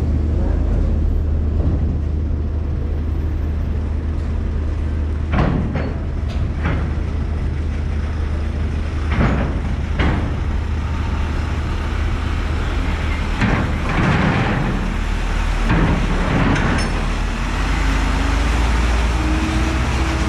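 Heavy diesel engine running with a steady low drone, broken by several short bursts of hissing noise.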